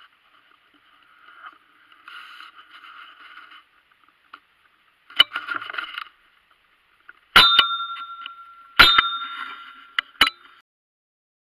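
Shotgun firing from a hide: two loud shots about a second and a half apart, each with a ringing tail that dies away over about a second, a fainter crack before them and another just after.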